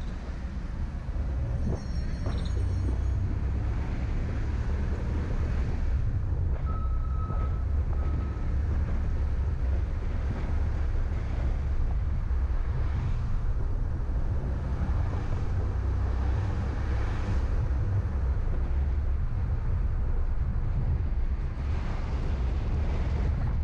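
Car driving along city streets: a steady low road and engine rumble, with wind noise on the microphone.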